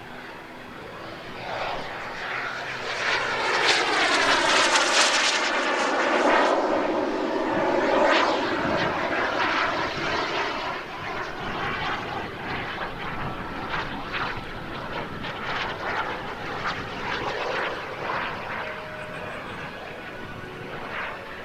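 Radio-controlled English Electric Lightning model jet's B300F gas turbine engine flying past: a jet rush that swells to its loudest about four to eight seconds in, with a sweeping phasing sound as it passes, then carries on quieter as the jet moves away.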